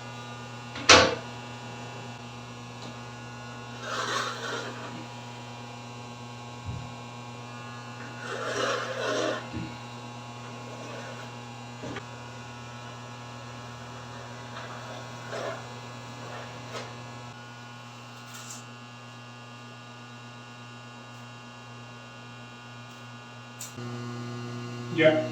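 Steady electrical mains hum, with occasional handling noises from positioning a peel-and-stick tile on the wall: a sharp click about a second in, brief rustling around four and nine seconds in, and a few light taps.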